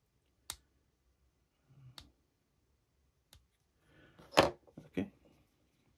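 Small cutters snipping through thin 3D-printed flexible resin strands: three sharp clicks about a second and a half apart. Near the end comes a louder knock of handling.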